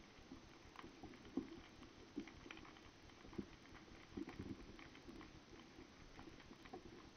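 Faint underwater crackling with irregular small clicks and a few louder ticks, heard by a camera underwater.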